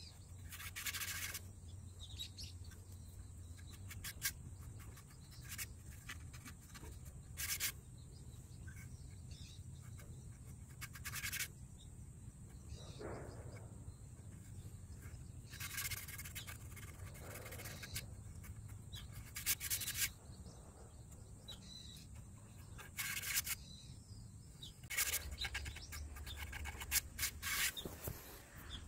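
Short, irregular scraping rubs as fingertips press and smooth white cement paste into screw holes on textured cement siding boards, with faint bird chirps now and then in the background.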